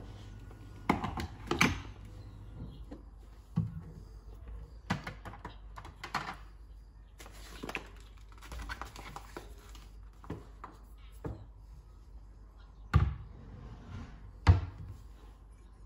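Kitchen handling noises: a string of separate knocks and clatters as jars and other items are picked up and set down on a countertop, the loudest about a second and a half in and twice near the end, with stretches of rustling in between.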